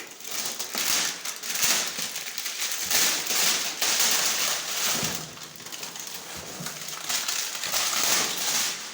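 Packaging rustling and crinkling unevenly as a new gas stove is unboxed and lifted out of its wrapping.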